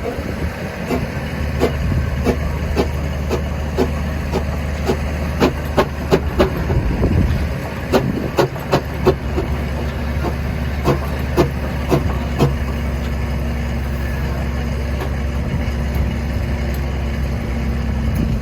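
Fowler steam ploughing engine working, a steady low rumble under sharp, regular beats about twice a second that turn uneven in the middle and then thin out.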